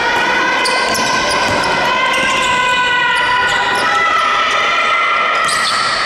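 Basketball dribbled and bouncing on a wooden gym floor during play, under a sustained sound of several held tones that drift slightly in pitch.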